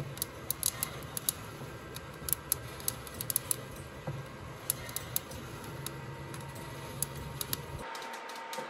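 Coffee beans in second crack inside a Behmor 1600 Plus drum roaster: quick, irregular, high-pitched pops that sound a lot like Rice Krispies, the sign of a dark roast. Under them runs the steady low hum of the running roaster.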